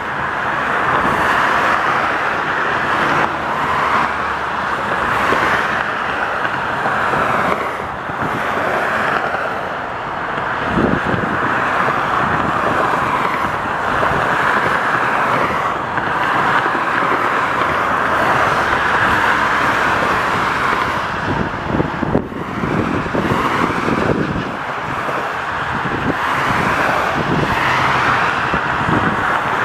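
Expressway traffic: a steady hiss of car tyres and engines, swelling and fading every couple of seconds as cars pass below.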